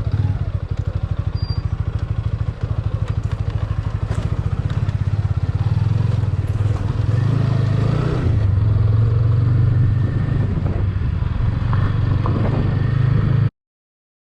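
Vehicle engine running while driving along, a steady low pulsing drone with road and wind noise. It cuts off suddenly near the end.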